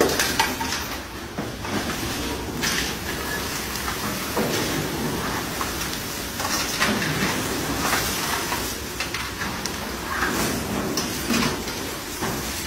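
Krupuk crackers frying in a giant wok of hot oil, the oil sizzling steadily, while metal spatulas and scoops scrape and clatter against the wok as the crackers are stirred.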